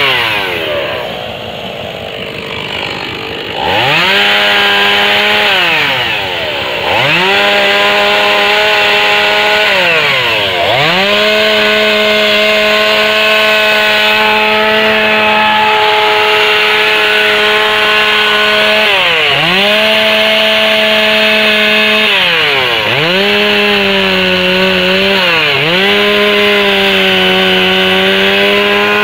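Two-stroke chainsaw carving wood: the engine idles for the first few seconds, then runs at high revs, with the throttle let off about five times so the pitch drops and climbs straight back up.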